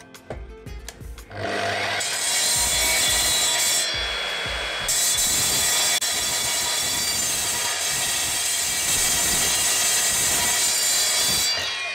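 Evolution multi-material mitre saw cutting into a bar of very hard steel, a steady grinding screech with a high whine that sets in about a second in, eases briefly about four seconds in, and fades near the end. The steel is beyond the saw's capacity, and the cut goes slowly.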